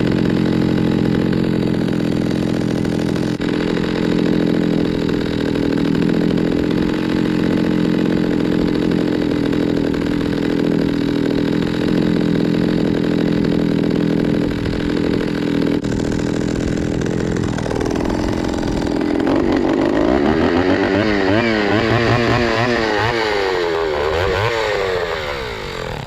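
John Deere 70V two-stroke chainsaw running at high speed, steady for most of the time. In the last several seconds its engine speed wavers quickly up and down.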